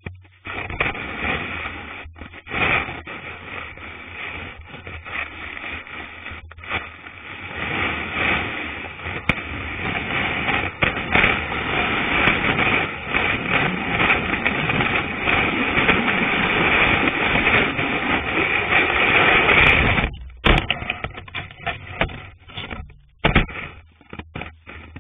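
Cross-country ski sliding over snow right against the camera: a continuous hiss and scrape of the ski on the snow that builds into a long, steady glide, then breaks up into separate scrapes and knocks toward the end.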